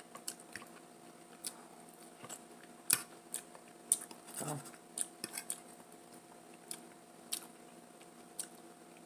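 Close-miked eating sounds: scattered sharp clicks and taps of a fork in the food and of chewing and lip smacks, with a short hummed "mm" about halfway through.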